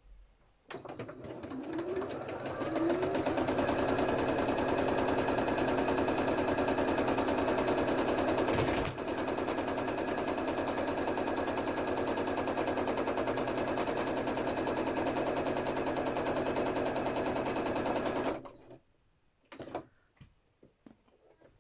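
Electric sewing machine stitching fabric: it speeds up over the first couple of seconds, then runs fast and steady. There is a sharp knock about nine seconds in, after which it runs a little quieter, and it stops about eighteen seconds in.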